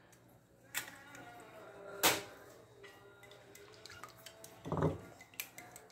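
Dishes and kitchen utensils being handled on a countertop: a few sharp clinks and knocks, the loudest about two seconds in, a duller thump near five seconds, and light ticks near the end.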